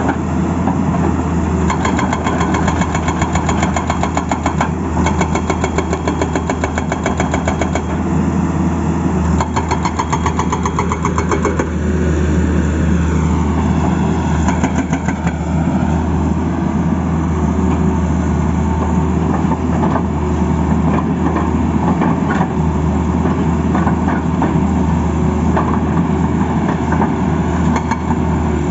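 Tata Hitachi excavator's diesel engine running steadily with a low drone and a fast, even clatter in the first few seconds. A whine rises and then falls in pitch about halfway through.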